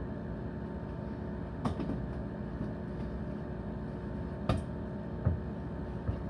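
A steady machine hum, with four short knocks; the loudest comes a little after five seconds in.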